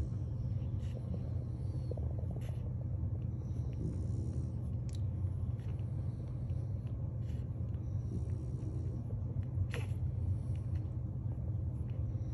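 Week-old French bulldog puppies nursing: occasional soft suckling clicks and faint short grunts or whimpers over a steady low hum.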